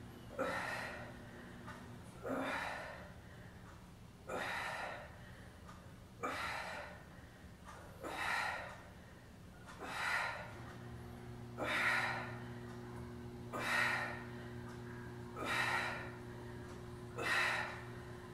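A woman breathing out hard and audibly through the reps of a scissor-legs ab exercise, about one breath every two seconds, ten in all. A faint steady hum lies underneath.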